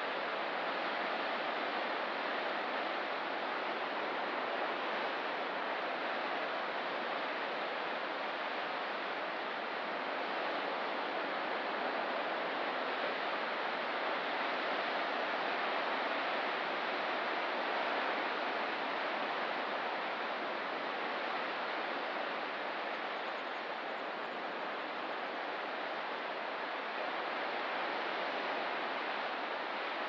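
Steady rushing water: an even wash of surf-like noise that holds level, with no distinct wave breaks.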